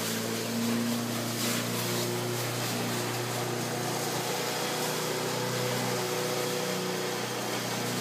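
A steady engine hum with a few brief, faint rustles.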